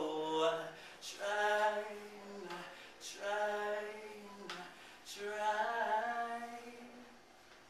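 A solo voice singing unaccompanied, holding long notes in three phrases with short breaks between them.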